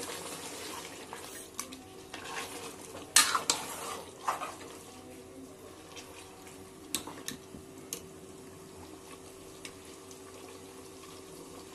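Metal ladle stirring and scraping meat masala in an aluminium pressure cooker, with several sharp metal clinks against the pot, the loudest about three seconds in. A light frying sizzle runs underneath as the meat is browned until the oil separates.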